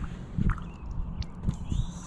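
Kayak being paddled: a few dull knocks of the paddle against the hull and small splashes of water, over a steady low rumble.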